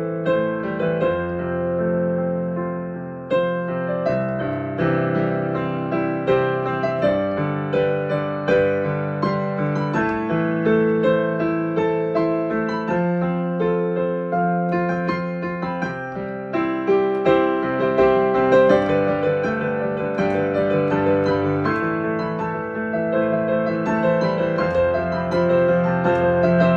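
Improvised piano playing, slow and gentle, with sustained chords and a melody of struck notes. The tone is that of an electric or digital piano.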